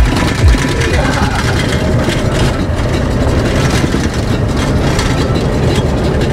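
Steady in-cab road and engine noise from a Holden Colorado dual-cab ute driving along: an even rumble of motor and tyres. There are a couple of deep thumps in the first half-second.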